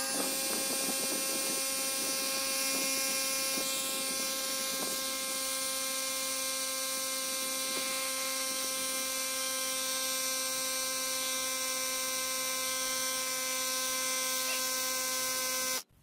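Ryobi cordless power inflator's compressor running steadily at a constant pitch, pumping air into a small turf tire to about 14 pounds of pressure, then switching off suddenly near the end.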